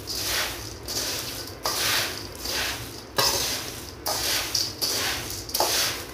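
A metal spoon stirring a bowl of dry puffed-rice chevdo in a metal bowl: crisp rustling in repeated strokes, about one a second, with occasional sharp clicks of the spoon against the bowl.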